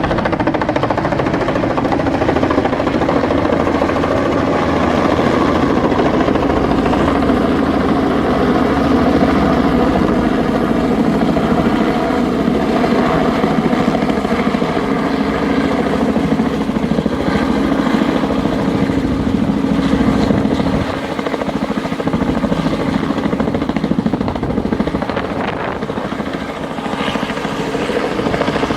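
Helicopter hovering or flying low overhead: a loud, steady rotor and engine sound with a constant pitched drone, easing a little about three quarters of the way through.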